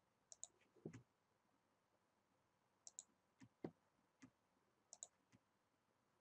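Computer mouse clicking: a few faint, scattered clicks, several as quick press-and-release pairs, with near silence between.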